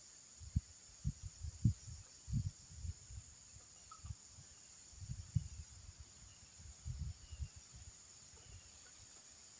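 Steady high-pitched drone of insects, with irregular low muffled thuds and rumbles coming in clusters during the first eight seconds.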